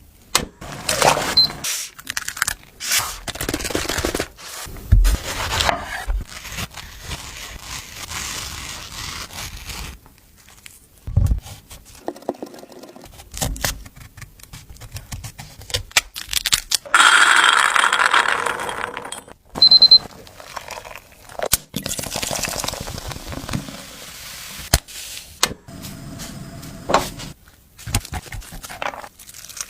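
Kitchen preparation sounds: repeated scraping, clicks and knocks of utensils and containers, with a longer noisy stretch and a short high beep about twenty seconds in.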